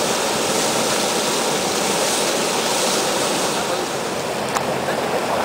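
Turbulent whitewater rushing and churning against a concrete wall, a loud steady rush, with a single short click near the end.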